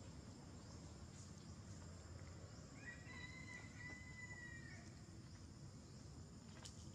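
A faint animal call: one drawn-out, whistle-like note lasting about two seconds, starting about three seconds in and dipping slightly at the end. It sits over quiet outdoor ambience with a faint steady high-pitched hum.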